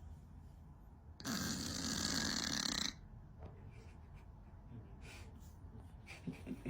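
A cat snoring: one long snore about a second in, lasting nearly two seconds, between much quieter stretches.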